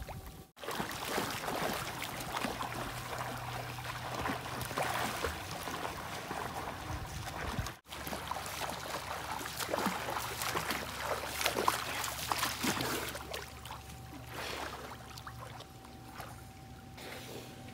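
Water splashing and sloshing, with a low steady hum underneath; the sound drops out for a moment twice.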